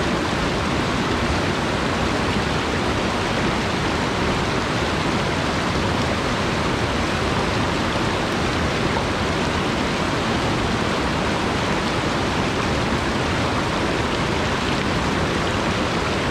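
Rocky mountain stream rushing over boulders and a small cascade, a steady, even rush of water.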